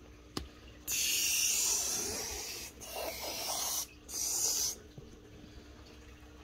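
Plush toy fabric rubbing and rustling close against the microphone as a plush is pulled out of a fabric bin: three bursts of rough hiss, the first about two seconds long starting about a second in, after a light tap.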